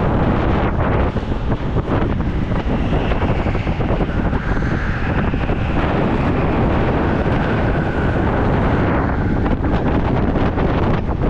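Go-kart running at speed around a track, heard through heavy wind buffeting on a helmet-mounted camera's microphone.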